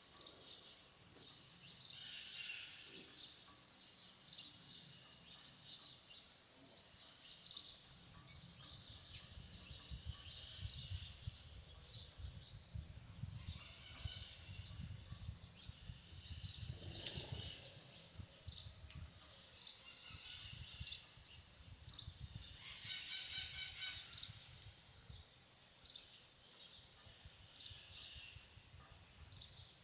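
Faint countryside ambience with birds calling and chirping on and off throughout, and one louder, rapidly pulsing call about two-thirds of the way through. A low rumble rises under the birds for a stretch in the middle.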